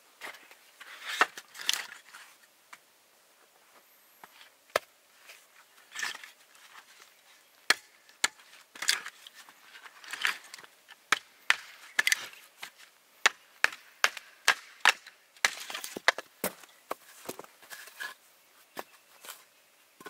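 Firewood being split into kindling on a wooden chopping block: a long series of sharp wooden knocks and cracks at an uneven pace, some coming in quick runs.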